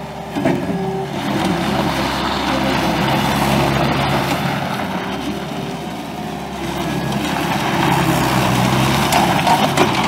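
Bobcat S185 skid steer's Kubota 2.6-litre four-cylinder turbo diesel running, growing louder then easing off a few times over the seconds.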